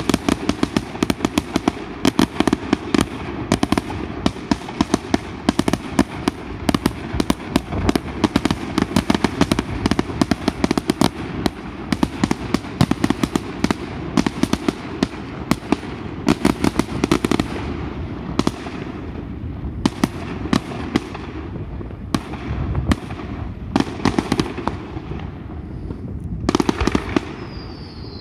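Fireworks display: a rapid, nearly continuous barrage of launches, bangs and crackling, with short gaps in the last third. A brief falling whistle sounds near the end.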